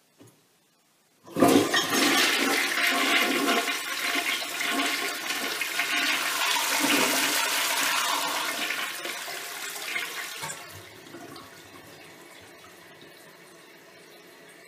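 A 1957 Standard Modernus toilet flushing: a faint click, then about a second later a loud rush of water through the bowl lasting around nine seconds. It fades near the end into a quieter steady hiss of water as the tank refills.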